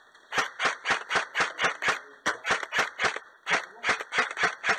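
A rapid run of sharp knocks or clicks, about four a second, in short strings broken by brief pauses.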